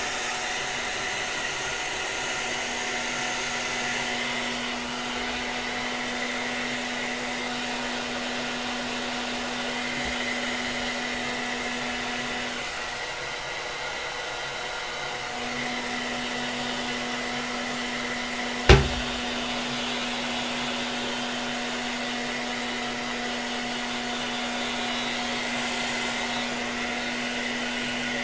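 Handheld hair dryer running steadily on the lace adhesive of a wig install, its hum briefly dropping out a little under halfway through. A single sharp knock cuts through about two-thirds of the way in.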